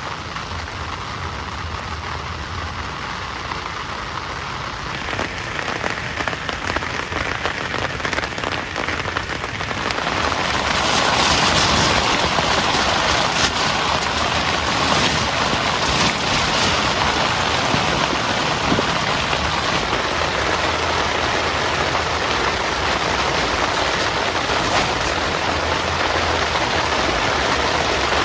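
Heavy rain falling, with many separate drops audible; it grows louder and denser about ten seconds in.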